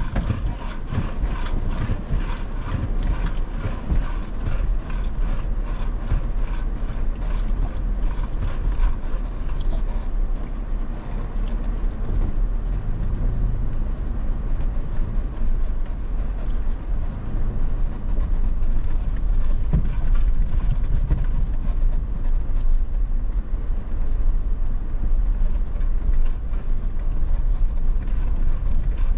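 Off-road vehicle driving over a rough dirt trail: a steady low rumble with frequent rattling clicks, densest in the first third.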